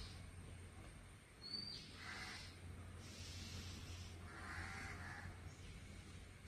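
Birds calling: a brief high chirp, then two harsh, rasping calls about two seconds and four and a half seconds in.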